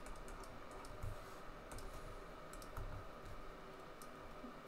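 Faint, irregular clicks of a computer mouse, several of them scattered through.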